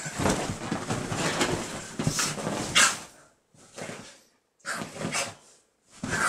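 Shiba Inu growling and snarling in rough bursts while it play-fights and snaps at a gloved hand, with a few short pauses. Bedding rustles under the scuffle.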